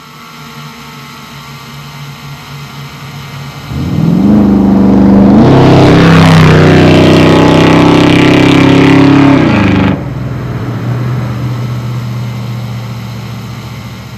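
Ford 306 small-block V8 engine running steadily. About four seconds in it is opened up: its pitch climbs sharply, rises again just after five seconds, and holds loud until near ten seconds. Then it drops back to a quieter steady run.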